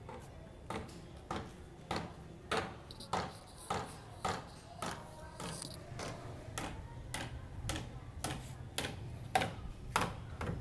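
A person's footsteps on a concrete rooftop: a regular sharp click about every 0.6 seconds, turning lighter and quicker about six seconds in, over a faint steady low hum.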